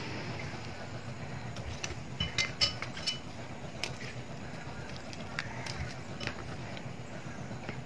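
A knife slitting sausages lengthwise on a plastic cutting board: scattered clicks and taps of the blade against the board, with a cluster of sharper clinks about two to three seconds in, over steady low background noise.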